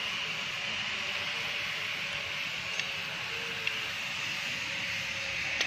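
Three light metallic clicks from the Ashok Leyland Dost's rear brake shoes, adjuster strut and spring being fitted together by hand, the first about three seconds in, over a steady hiss.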